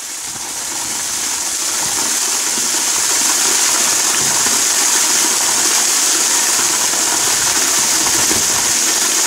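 Hot spring water rushing and pouring steadily. It grows louder over the first three seconds, then holds level.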